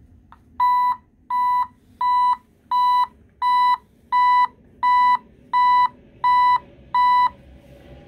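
Vehicle backup (reversing) alarm beeping on bench power: ten loud, even beeps at one fixed pitch, about three every two seconds, starting about half a second in and stopping near the end.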